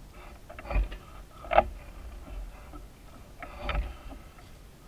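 Oars working in the oarlocks of a small wooden rowing dory: a few sharp knocks, the loudest about a second and a half in, over a low rumble.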